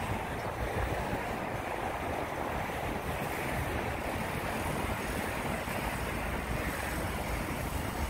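A steady rushing outdoor noise over a low rumble, with no distinct events.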